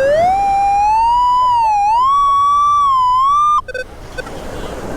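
Metal detector's continuous pinpoint tone, wavering and gradually rising in pitch as the coil closes in on a buried target in wet beach sand, then cutting off suddenly about three and a half seconds in.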